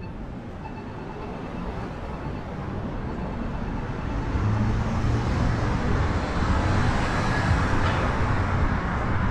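Street traffic: steady noise of passing cars that swells about halfway through as a vehicle passes close by, adding a heavier low rumble.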